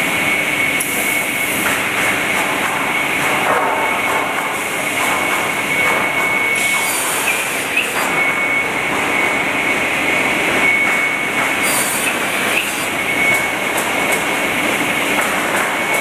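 Automated crosscut saw and branding line running: a steady machine noise with a high whine, and a short hiss about every five seconds.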